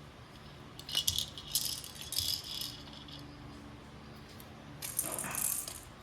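Rattling in two bouts: a burst about a second in lasting roughly two seconds, and a second shorter one near the end.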